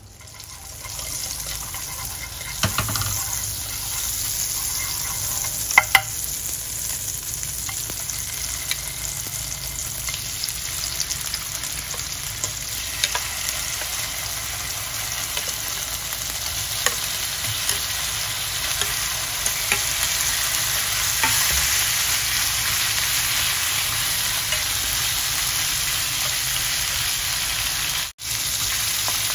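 Food sizzling in a hot frying pan. The sizzle swells about a second in and keeps going steadily, with a few sharp clicks of a utensil against the pan.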